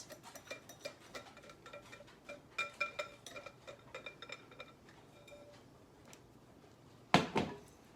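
A utensil tapping and scraping against a mixing bowl as six cracked eggs are added to the sugar and flour, each tap setting off a short ringing note from the bowl. There is a louder knock about seven seconds in.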